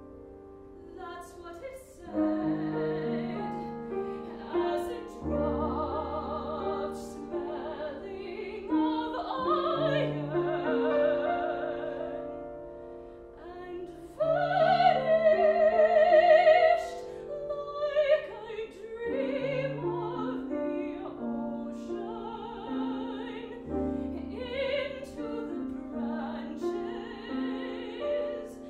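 Female classical singer singing with vibrato, accompanied by a grand piano; she is loudest on a long held note about halfway through.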